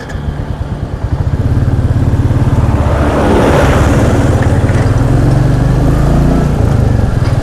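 Royal Enfield Classic 350's single-cylinder engine running under way on the motorcycle, pulsing steadily and getting louder about a second in as it picks up.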